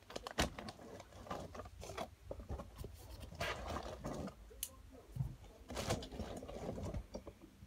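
Plastic packaging and a bubble mailer being handled: irregular rustling, crinkling and scraping with scattered small clicks.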